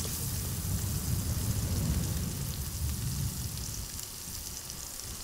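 Grouper fillets sizzling in butter in a cast-iron skillet, a steady fine crackling hiss, with a low rumble underneath.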